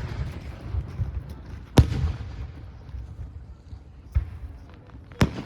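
Fireworks shells bursting overhead: a sharp bang a little under two seconds in, a weaker one about four seconds in, and another near the end, with low rumbling between them.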